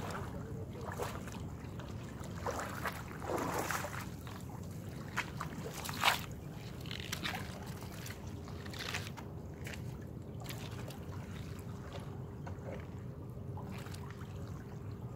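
Steady low rumble of wind and water lapping against shore rocks, with a few short knocks and rustles in the first half, the sharpest about six seconds in.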